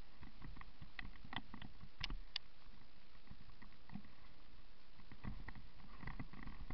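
Mountain bike rolling fast down a rough gravel and dirt trail: tyres crunching over stones and the bike rattling, with scattered sharp clicks and knocks over a low rumble.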